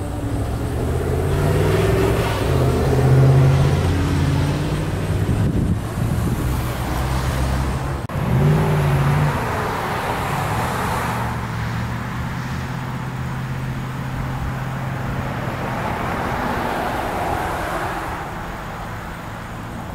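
Road traffic: a vehicle engine running with a low hum that shifts in pitch, and cars passing by twice in the second half.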